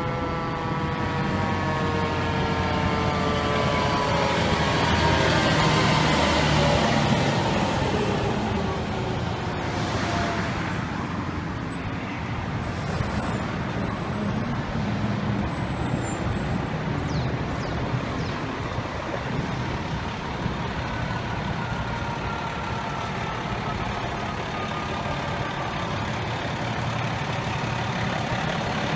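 A fire truck's siren winding down: a slowly falling wail of several tones that fades out over the first several seconds. Under it and after it, the low rumble of heavy truck engines and steady street traffic.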